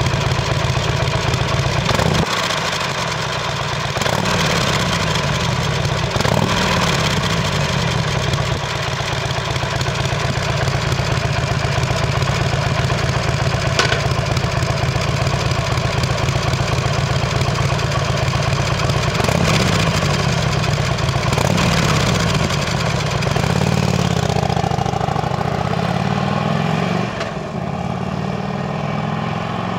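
2007 Harley-Davidson Sportster's V-twin engine idling through its chrome muffler, blipped several times with short revs. Near the end it pulls away, rising through the gears and fading as the bike rides off.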